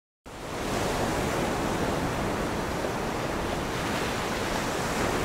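A steady rushing noise, like surf, that fades in just after the start and holds at an even level.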